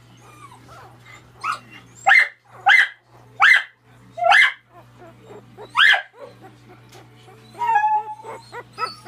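Young miniature dachshund puppies squealing and whimpering: about six short, loud, high-pitched squeals that rise in pitch, then a longer cry and a few smaller whimpers near the end.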